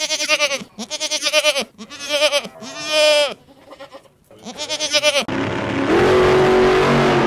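Goats bleating: five separate quavering bleats, the fourth longer and louder. About five seconds in, a loud car engine cuts in and keeps running.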